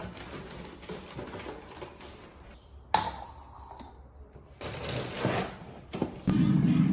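Dry cereal rings rattling into a plastic bowl as they are poured from the box, in two spells with a single sharp click about three seconds in. Near the end, the steady low hum of an electric kettle that has been switched on begins.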